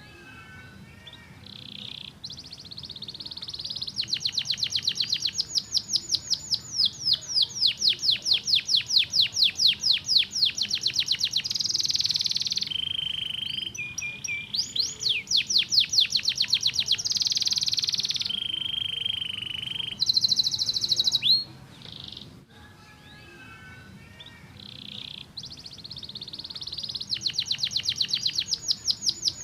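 Domestic canary singing: long fast trills of rapidly repeated notes, broken by a few held steady whistles. The song pauses briefly about three quarters of the way through, then starts again.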